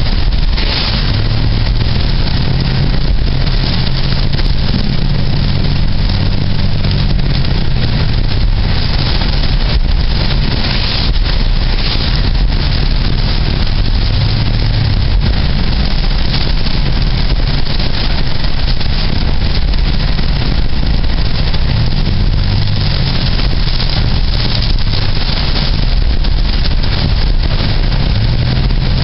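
A car driving: steady engine hum whose pitch shifts a little, under a continuous rush of road and wind noise.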